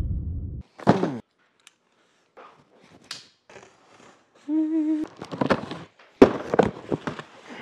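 A cardboard shipping box being opened: a folding knife slitting the packing tape, then the flaps pulled apart in a run of short cardboard rustles and knocks.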